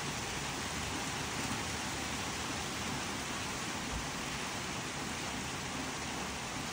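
Steady rain falling, an even hiss with no separate drops or other events standing out.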